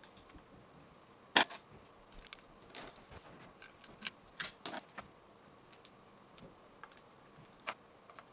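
Scattered light metallic clicks and taps of a screwdriver and small screws on a stand mixer's metal gear case as screws are fitted and tightened, with one sharper knock about a second and a half in.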